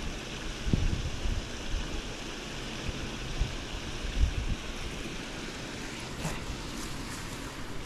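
Steady rush of flowing water in an irrigation channel, with scattered low thumps.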